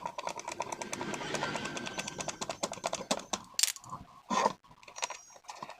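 Rapid, irregular clicking and rattling of table fan parts being handled and fitted together. The clicks are densest in the first couple of seconds, then thin out into a few separate knocks.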